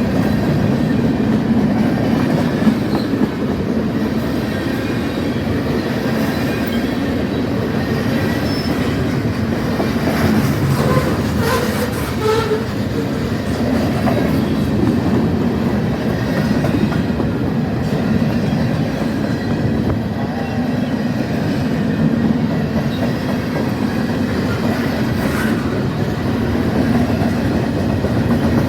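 Freight train cars rolling past at steady speed, the wheels clacking over the rail joints in a continuous rumble, with a brief faint wheel squeal about halfway through.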